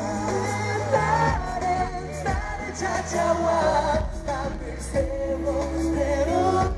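Live K-pop ballad: a male vocalist singing into a microphone over a backing track with a steady bass, played through concert speakers.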